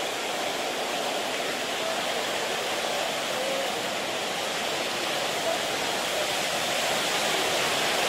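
Steady rush of a waterfall's falling water, heard close by.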